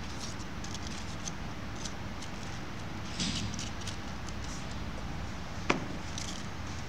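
Faint crinkling and rustling of crepe paper and floral tape being handled as a paper flower's stem is wrapped, over a steady low hum, with a short burst of crinkling about three seconds in and a single sharp click about a second before the end.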